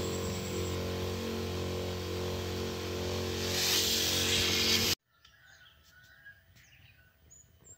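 Knapsack tank sprayer spraying liquid fertilizer onto seedlings: a steady motor hum with the hiss of spray from the nozzle, the hiss growing stronger near the end, then cutting off suddenly about five seconds in. A few faint bird chirps follow.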